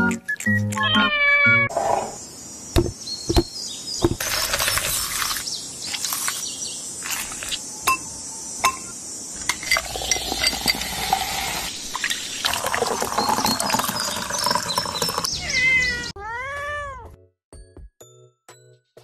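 A cat meowing over background music. In the middle comes a long stretch of hissing fizz with sharp clinks, as soda is poured over ice in a glass.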